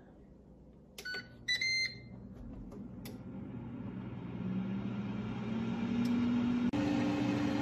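Ninja AF101 air fryer starting up: beeps from its control panel about a second in, then its fan and heater come on with a whir that grows louder and rises in pitch as the fan spins up, stepping up once more near the end.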